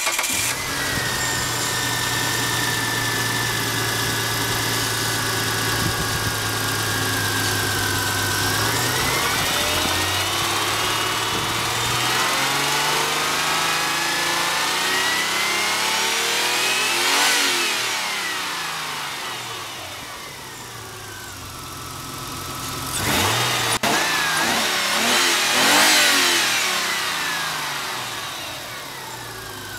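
Kia Carnival 2.5-litre V6 petrol engine idling steadily, then revved slowly up to a peak about halfway through and let back down. It is revved a second time, more quickly, in the last third and settles back to idle, running as a used engine that tests good.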